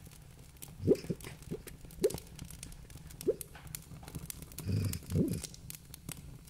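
Wood fire crackling in a fireplace: scattered sharp snaps, with three low knocks about a second apart and a brief low rumbling sound around five seconds in.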